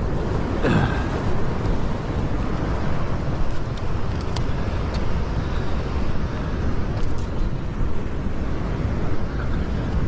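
Steady wind rumbling on the microphone, a low, even noise, over the wash of surf from high waves.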